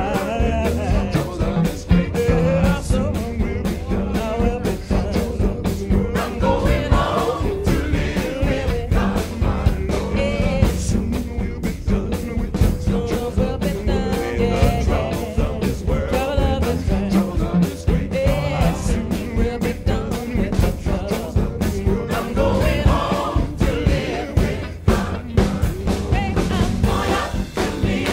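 Upbeat gospel song: a woman's lead vocal backed by a choir, over a steady driving beat.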